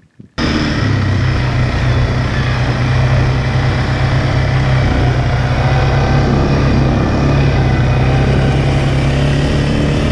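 A motor vehicle's engine running steadily at an even speed, loud and close, with a low hum. It cuts in about half a second in and cuts off suddenly at the end.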